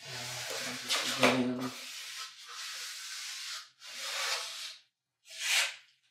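Foam brush swishing back and forth across a vinyl-wrapped wooden cornhole board, spreading a coat of water-based polycrylic. About five strokes, the first the longest and loudest.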